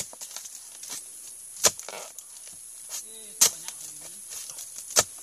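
A harvesting blade chopping into oil palm fronds: four sharp strikes, about one every one and a half seconds.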